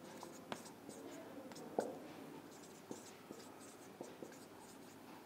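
Felt-tip marker writing on a whiteboard: faint scratchy strokes with a few light taps as the tip meets the board.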